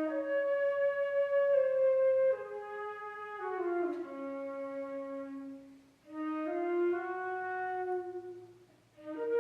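Solo flute playing held notes in its low and middle register. A phrase steps and slides downward to a long low note about four seconds in, then after a short breath a new phrase begins about six seconds in, and another just before the end.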